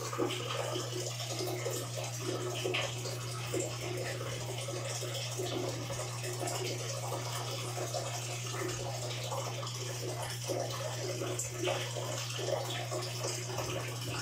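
Water sloshing and splashing in a large tub as hands move through it, over a steady low hum.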